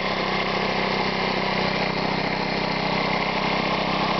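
Briggs & Stratton 3.5 hp lawnmower engine running steadily, driving a homemade air compressor through a V-belt. The compressor is pumping the tank above 100 psi, a load that makes the engine work harder.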